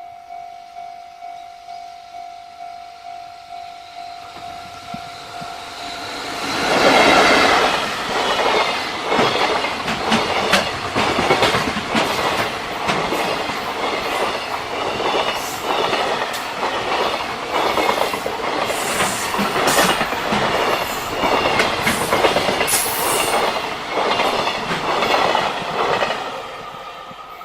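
Level-crossing warning bell ringing steadily, about two strokes a second. About six seconds in, a JR Freight freight train passes the crossing at speed, its wheels clattering over the rail joints in a fast, even rhythm for about twenty seconds. The train fades near the end, and the crossing bell is heard again.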